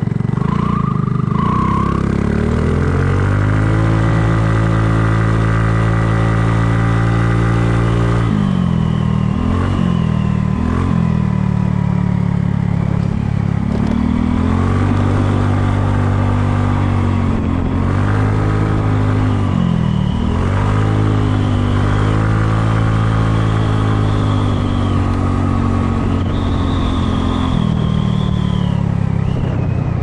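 Kymco People scooter's engine pulling away and climbing in pitch over the first few seconds, then cruising steadily, with the throttle eased off and reopened several times along the way.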